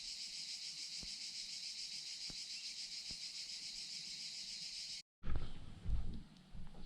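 Chorus of cicadas: a steady, high-pitched, fast-pulsing buzz. It cuts off abruptly about five seconds in, and a few low thuds follow.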